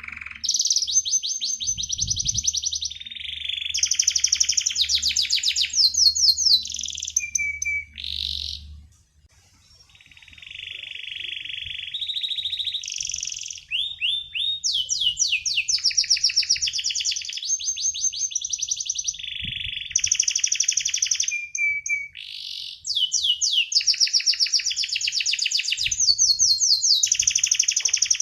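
Domestic canary singing long phrases of fast rolling trills and rapid repeated chirps, with a short pause about nine seconds in.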